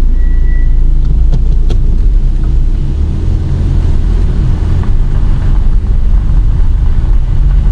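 Car on the move: a steady low rumble of engine and road noise, with a short high tone about half a second in.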